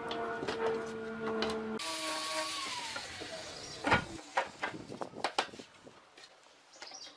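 A power tool's motor hums steadily, then changes and winds down with a falling pitch. Several sharp knocks of wood follow, and then it goes quieter.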